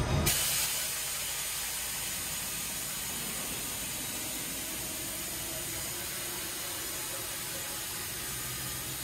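Background music cuts off suddenly just after the start, leaving a steady, even hiss.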